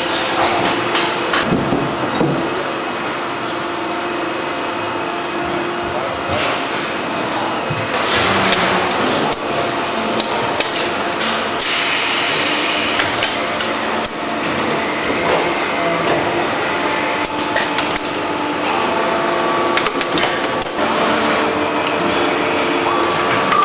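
Factory-floor sound of plastic injection-moulding machines at work: a steady machine hum with several held tones, broken by frequent clacks and knocks. A burst of hiss comes about twelve seconds in.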